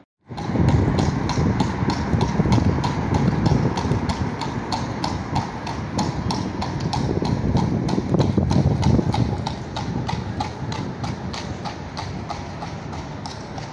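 Horse's hooves clip-clopping on asphalt at a steady walk, about three to four strikes a second, as it pulls a carriage. A low rumble runs underneath, easing off near the end.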